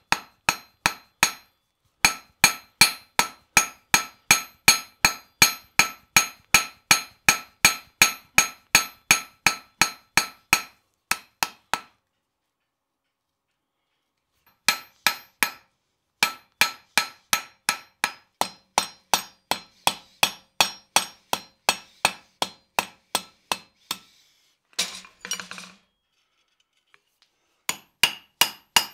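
Blacksmith's hand hammer striking a red-hot iron nail blank on a steel anvil: a quick, even run of ringing blows, about three a second, that stops for a few seconds midway and then resumes. Near the end there is a short rasping noise, and then the nail head is struck in a nail header.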